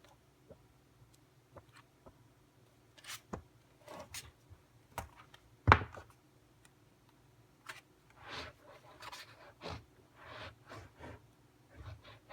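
Items being handled during an unboxing: irregular light taps, clicks and rustling scrapes, with one sharp knock a little before the middle.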